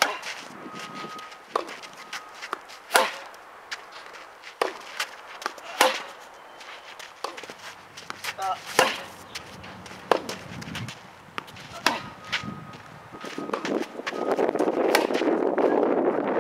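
Tennis ball struck with rackets in a rally on a hard court: sharp pops of the ball off the strings every few seconds, with lighter taps of bounces and footsteps between them. A rushing noise builds over the last few seconds.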